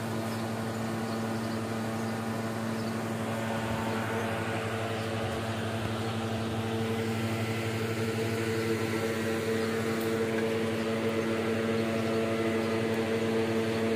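Electric evaporative air cooler running: a steady motor hum under a rush of fan air.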